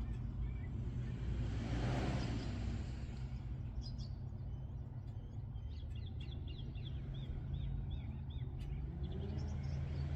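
Small birds chirping, with a quick run of repeated notes in the middle, over a steady low rumble of distant road traffic. A brief whoosh passes about two seconds in.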